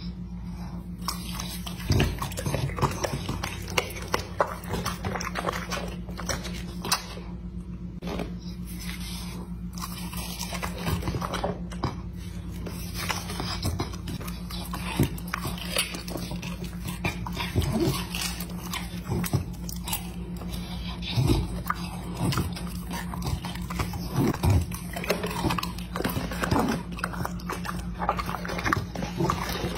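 A dog chewing and smacking its lips as it eats fruit and a boiled egg, many short irregular clicks over a steady low hum.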